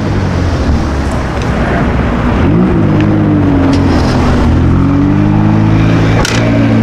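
Car engine running loudly, its pitch rising about two and a half seconds in, easing off, then climbing again, with one sharp click about six seconds in.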